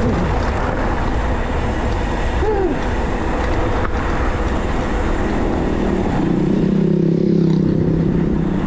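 Motorcycle engine running under way on a rough crushed-stone macadam track, mixed with a dense rumble of noise. About five and a half seconds in, the engine settles into a steadier note.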